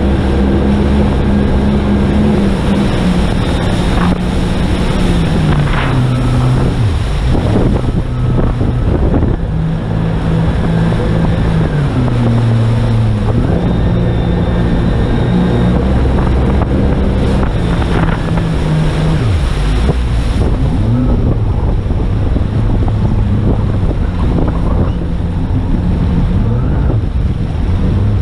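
Jet ski engine running under way, its pitch dropping and climbing again several times as the throttle is eased and opened, over a steady rush of water and wind.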